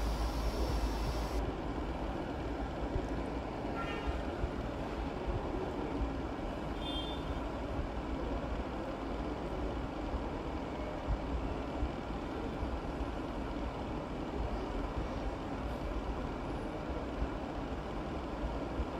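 Steady low rumble with a hiss over it: the background noise of a commercial kitchen.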